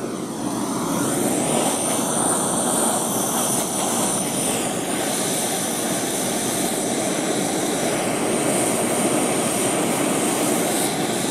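Handheld gas torch burning with a steady rushing hiss, its flame held on Loctite-locked bolts to soften the threadlocker so they will break loose.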